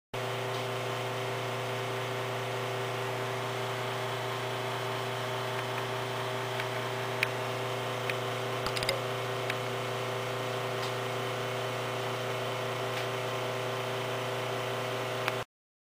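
A steady machine hum with several held tones, and a few light clicks and taps around the middle and once near the end as a propeller is handled on a balancer rod.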